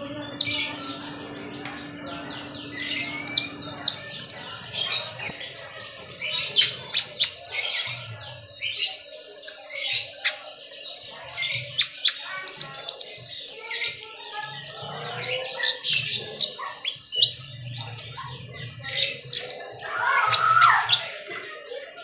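Caged sunbird singing a fast, unbroken stream of high, sharp chirps and twittering trills.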